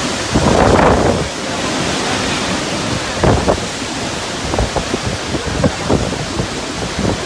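Hurricane-force wind buffeting the microphone, a loud, steady rushing noise with a few louder gusts about a second in and around three seconds in.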